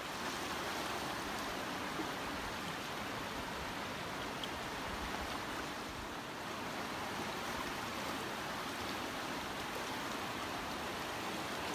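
Steady rushing of flowing river water, an even hiss that holds at the same level throughout.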